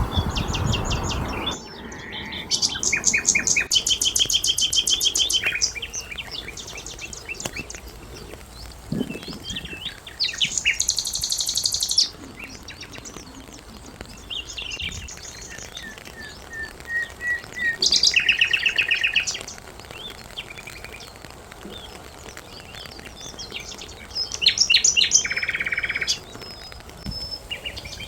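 Songbirds singing in turns: fast trills and rapidly repeated high chirps come in bursts of one to three seconds, with quieter stretches of softer calls between them. A low rushing noise under the birds cuts off abruptly about a second and a half in.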